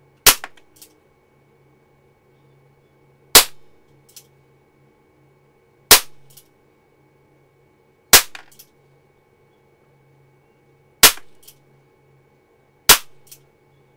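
Walther CP88 Competition CO2 air pistol firing .177 pellets, shot by shot in double action: six sharp cracks two to three seconds apart, each followed by a couple of fainter clicks.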